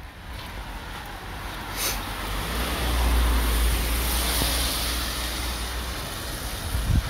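A car driving past on a rain-soaked road: the hiss of its tyres on the wet asphalt swells over the first few seconds and fades near the end. Wind rumbles on the microphone under it.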